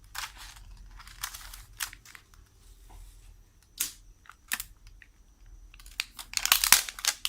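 Food packaging being handled as sticky rice and fried pork are packed: scattered rustles and crinkles, with a louder run of crinkling about six and a half seconds in.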